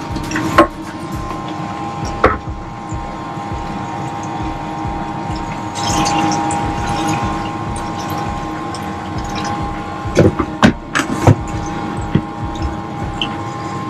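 Descaling solution poured from a flexible plastic bucket into a bucket of circulating liquid, with a splashing rush about six seconds in, over the steady hum of a small electric utility pump. A few sharp knocks near the end.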